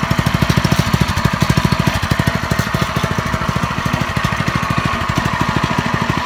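The Meister engine running with a steady, even beat of about a dozen firing pulses a second.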